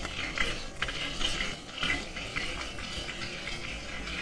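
Pieces of rock prickleback eel frying in hot oil, a steady sizzle with irregular crackles and pops.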